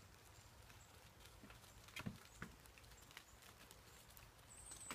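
Faint, scattered crackling and rustling of dry fallen leaves being stepped on, with a couple of sharper crackles about two seconds in.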